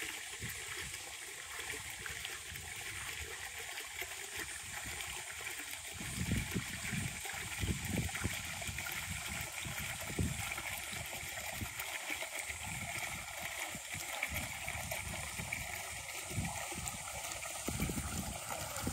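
Water splashing and lapping as a toddler in a swim vest paddles and kicks through a swimming pool, over a steady hiss of running water.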